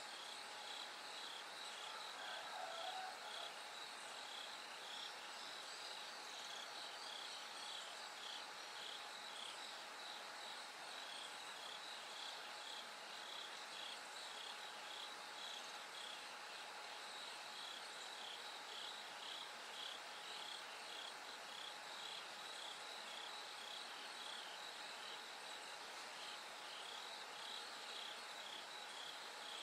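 Japanese bell crickets (suzumushi) chirping: short high bell-like chirps repeating evenly, about one or two a second, over a steady high insect trill. A brief lower call sounds about two seconds in.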